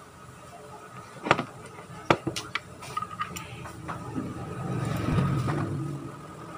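Sharp clicks and taps of small parts being handled and fitted, as the auto choke is mounted on a scooter throttle body, about six of them in a few seconds. A low rumble swells a little after the middle and fades.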